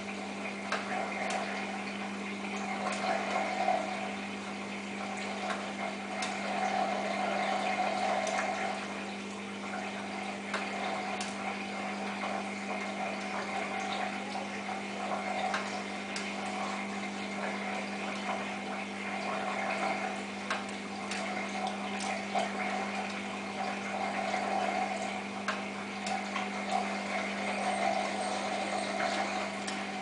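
Samsung WF8804RPA front-loading washing machine with its drain pump humming steadily while water gurgles through it. The water sound swells and fades every few seconds, with scattered light clicks.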